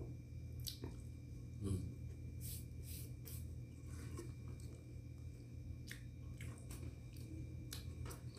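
A person chewing a mouthful of khubz flatbread, heard as faint, irregular small clicks and smacks of the mouth over a low steady hum.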